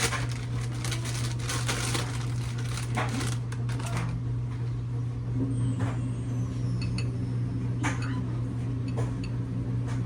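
Food-prep handling noise at a kitchen counter while lettuce goes onto a sandwich: a dense run of crisp rustling and knocks for about the first four seconds, then scattered single clicks of utensils and dishes, over a steady low hum.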